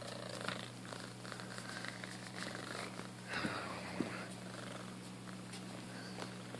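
Kitten purring steadily while it grabs and mouths a hand, with fabric rustling as it tussles on a towel; a louder rustle and a sharp click come about three and a half to four seconds in.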